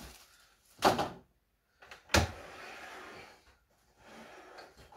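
Heavy sliding mitre saw being turned around on a wooden table: two sharp knocks, about a second and two seconds in, then its base scraping and sliding across the tabletop.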